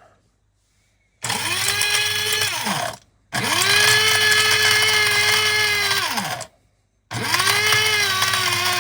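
Cheap electric coffee grinder grinding clumps of soil into fine dust, switched on three times in short pulses. Each pulse is a loud motor whine that rises quickly, holds steady, then winds down in pitch when the button is let go; the middle pulse is the longest.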